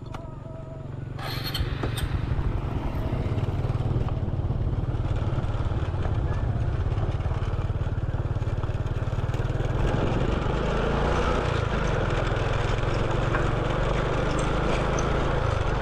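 Motorcycle riding along, its engine running under steady wind noise on the microphone. The sound grows louder about a second in, as the bike gets under way, and then holds steady.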